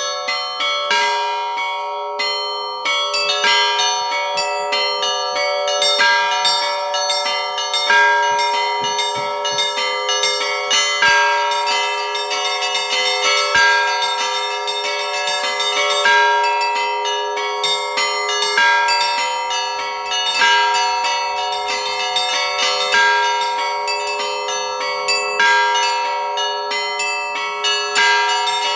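Russian Orthodox church bells ringing for a feast: small bells struck in quick, dense patterns over sustained ringing, with a heavier accent about every two seconds.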